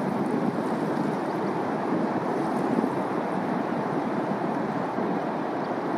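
Surf washing onto a sandy beach, a steady rushing noise.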